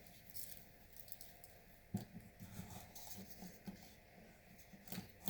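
Faint, soft squishing and small sticky clicks of clear-glue slime being handled and mixed with sand. There is a sharper click about two seconds in and another near the end.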